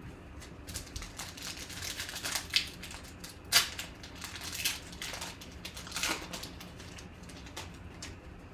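Trading card pack wrapper crinkling and crackling as it is torn open and handled, in a run of irregular crinkles with a few louder ones near the middle.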